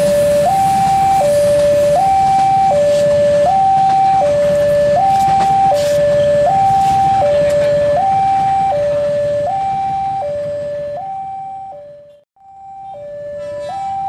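Railway level-crossing warning alarm sounding a steady two-tone signal, high and low tones alternating about every three quarters of a second, over a low rumble. The alarm fades away near the end, breaks off briefly, and starts again.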